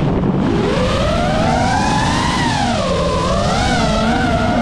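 FPV quadcopter's electric motors and propellers whining, the pitch rising and falling with the throttle as the drone dives and pulls out low over the ground, over a rough rush of propwash and wind.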